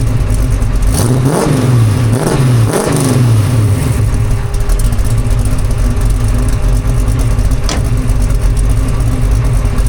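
454 big-block V8 of a 1969 Chevrolet C10, through a custom stainless exhaust with Flowmaster Flow FX glass-pack-style mufflers, revved twice in quick succession about a second in, then idling steadily, not yet fully warmed up. A short click sounds about eight seconds in.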